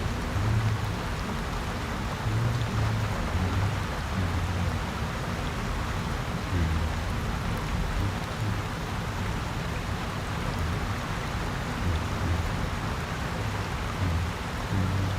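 Steady rain hissing, with a low hum underneath that swells and fades in short irregular patches.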